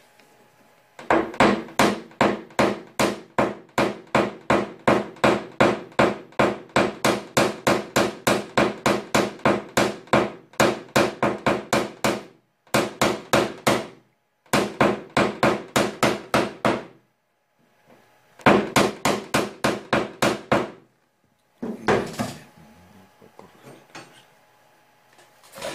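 Small PDR hammer striking a tap-down punch with a white tip against a car hood's metal, tapping down the panel during paintless dent repair. Rapid, even taps about three or four a second come in several runs with short pauses between them.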